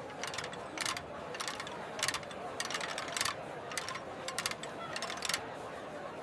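Clusters of quick mechanical clicks and rattles, recurring about twice a second at an uneven pace, over a steady background murmur.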